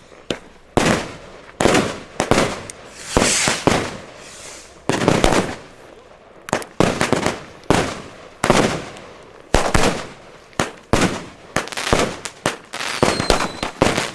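A rapid, irregular series of sharp firecracker bangs from Funke D-Böller going off one after another, about two a second, each bang echoing briefly.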